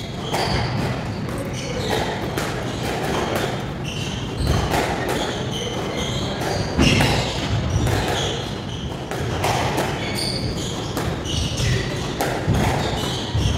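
Squash rally: the ball repeatedly struck by rackets and smacking off the walls, with shoes squeaking on the wooden court floor.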